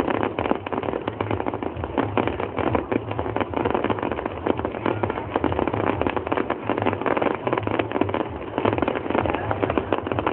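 Fireworks crackling: a dense, unbroken stream of small rapid pops.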